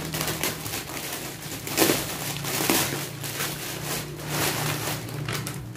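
Clear plastic packaging bag crinkling and rustling as it is handled, in irregular bursts, with the loudest crackle a little under two seconds in.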